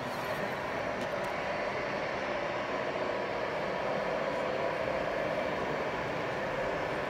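Radio-controlled model trucks running, a steady hum with a few constant tones over it.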